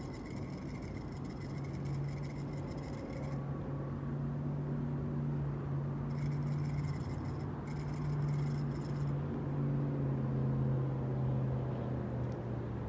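A low, steady motor drone that swells over several seconds and fades near the end, with a faint high wavering whine coming and going over it.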